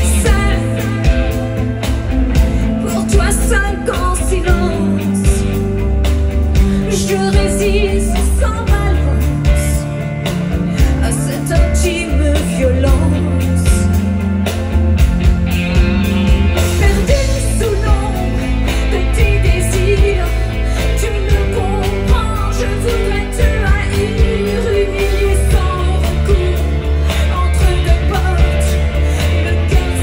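Live pop-rock band playing: a woman sings lead over drums, bass guitar, electric guitar and keyboards, with a steady beat and a strong bass.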